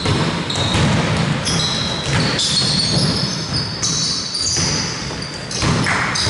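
Basketball game on a hardwood court: sneakers squeaking in short high squeals and a basketball bouncing on the floor.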